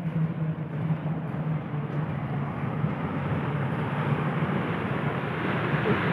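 Ocean surf breaking on a beach, a continuous rushing wash that builds louder over the last few seconds. A low steady hum runs under it for the first half.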